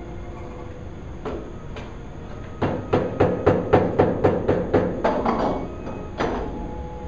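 A quick run of about ten sharp knocks, roughly four a second, each with a short ringing. Two single knocks come before it and one more after.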